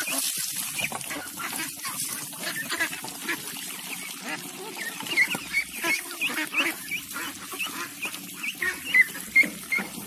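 A flock of young domestic ducks quacking while they feed: many short calls overlapping one after another, with a louder burst near the end.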